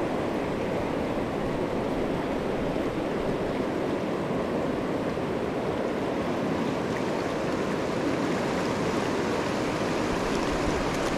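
Steady rush of fast river water running over rocks.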